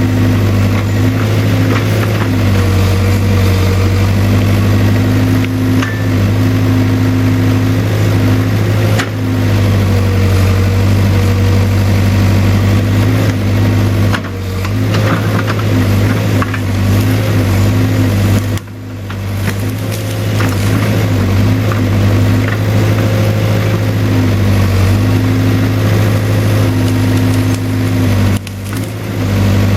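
Case 580K backhoe's diesel engine running steadily while the machine is being worked, with three brief dips in loudness.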